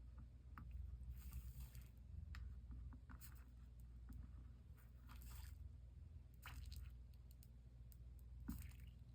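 Faint rustling and scraping in a few short bursts over a low steady hum.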